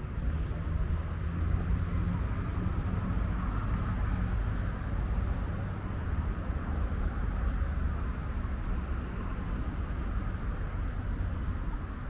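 Steady low rumble of outdoor background noise, with faint distant voices.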